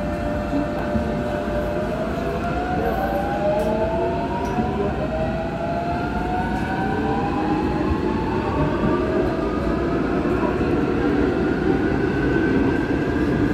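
Incheon Metro Line 1 train's Alstom IGBT traction inverter and motors whining as the train accelerates away from a station, the whine rising in pitch in several overlapping glides. Underneath, the rumble of the wheels on the rails grows gradually louder as speed builds.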